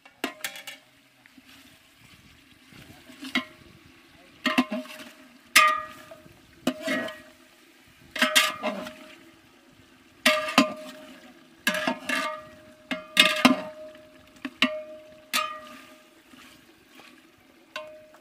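Long-handled metal ladle stirring chicken curry in a large aluminium pot, knocking and scraping against the pot's sides. It makes a dozen or so ringing metallic clanks, about one every second, irregularly spaced.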